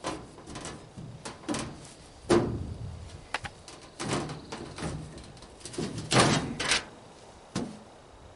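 Irregular clanks, knocks and rattles of metal parts being handled, loudest about two seconds in and again about six seconds in.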